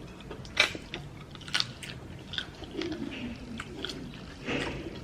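Close-up eating sounds: chewing with several sharp clicks and crunches.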